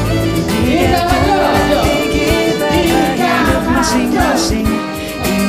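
Indonesian pop song playing: a singer's voice over guitar and a steady beat.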